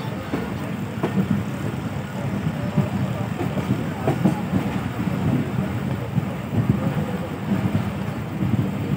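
Passenger train coach rolling along the track: a steady low rumble of the wheels on the rails, broken by irregular clacks and knocks.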